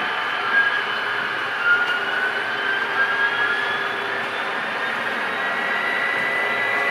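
Model railroad diesel locomotives passing close, their onboard sound decoders playing a diesel engine sound with a turbocharger whine through small speakers, mixed with the running noise of the models. The whine rises slowly in pitch, and there are a couple of light clicks in the first two seconds.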